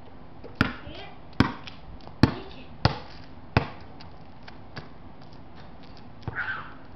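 A basketball being dribbled: five sharp bounces, each with a short ring, roughly three-quarters of a second apart, then the dribbling stops.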